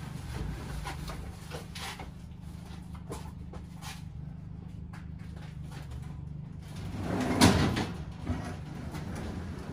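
Knocks and light rattles of gear being shifted on an overhead garage storage rack, with one louder clattering clunk about three-quarters of the way through, over a steady low hum.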